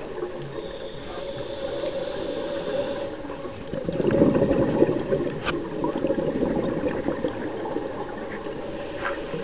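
Scuba diver's exhaled bubbles rushing up from the regulator, heard underwater through the camera housing as a dull, steady rush, with a louder surge about four seconds in.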